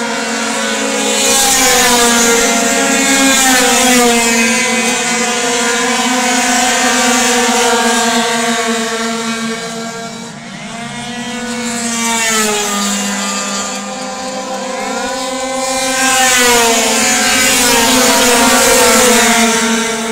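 A pack of racing scooters' small two-stroke engines running at high revs as they lap past, several engines at once, their pitch sweeping up and down as each one passes. The noise swells in two waves, easing off briefly about halfway through.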